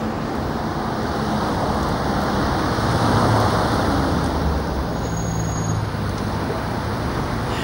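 Road traffic noise: a steady rush of passing cars with a low engine hum, loudest about three seconds in.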